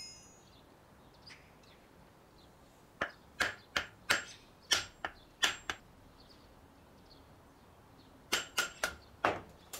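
A series of sharp clicks and taps from a knife being handled against a piece of leather: about eight in quick succession, a pause, then five more near the end.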